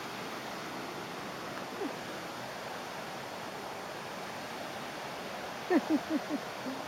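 Steady rushing hiss of flowing river water. Near the end a man gives a short laugh.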